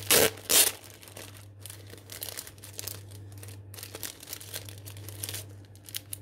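Packaging being handled and unwrapped by hand, crinkling and rustling: two loud rustles right at the start, then lighter, scattered crackling.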